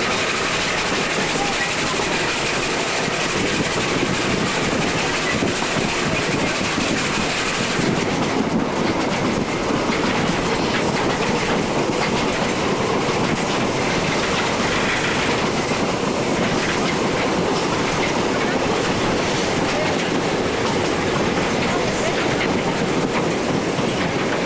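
Open passenger wagon running along the track behind a small steam locomotive: steady wheel-on-rail running noise, which changes character about eight seconds in as the top end falls away and the middle grows stronger.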